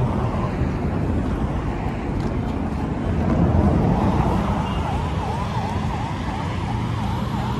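Steady low rumble of wind and road traffic. About four seconds in, a fast warbling siren joins it, its pitch dipping and rising about two and a half times a second.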